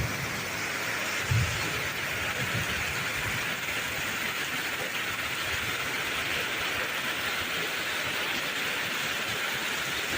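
Heavy rain pouring down in a steady, even hiss, with one brief low thump about a second and a half in.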